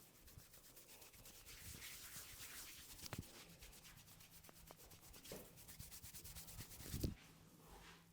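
Hands rubbing briskly over hair and scalp in a head massage, a faint rapid scratching rhythm, with a sharp click about three seconds in and a louder thump near the end.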